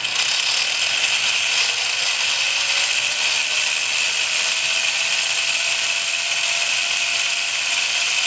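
Two Lego XL motors driving a multi-stage plastic gear train at high speed: a steady whirr of meshing gears that starts at once, with a faint whine rising over the first few seconds as the wheel spins up, then holding steady.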